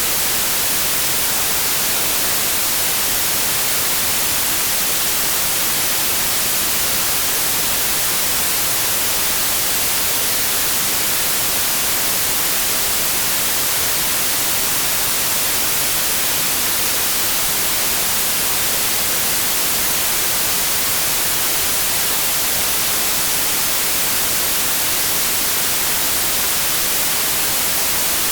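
Steady white noise, an even hiss strongest in the high end, unchanging throughout.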